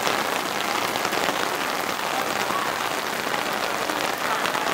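Steady rain falling on a surface close to the microphone: an even hiss made of many small, sharp drop hits.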